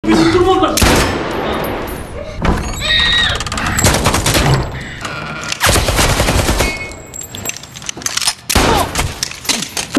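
Film gunfire: several loud bursts of rapid gunshots, with a shouted voice at the start.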